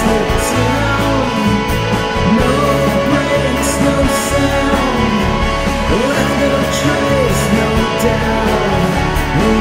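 Rock music with guitar, at an even, loud level.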